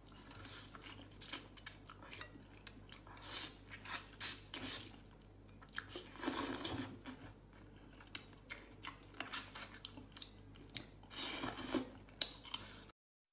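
Close-miked eating of spicy braised duck heads by hand: wet chewing and smacking with many small clicks of teeth on bone, and a couple of longer sucking spells. It cuts off suddenly near the end.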